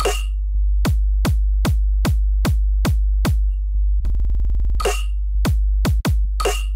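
Electronic music with a steady kick-drum beat, about two and a half beats a second, over deep bass, with a buzzing drum roll about four seconds in.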